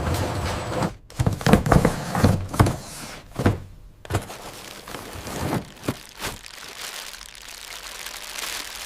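A run of irregular thuds and knocks, about a dozen over several seconds.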